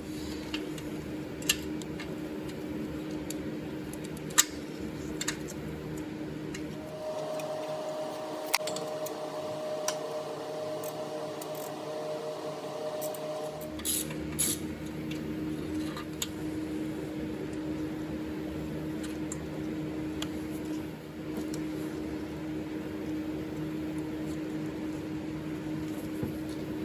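A steady machine hum with a few sharp clicks and taps of tools and parts being handled, as the old crankshaft position sensor is worked loose. For several seconds in the middle the hum changes to a higher tone.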